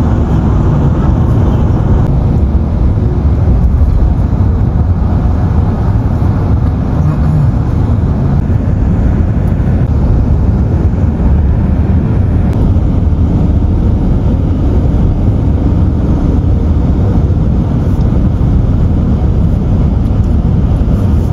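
Steady low rumble of road and engine noise from a car driving along, heard from inside the car.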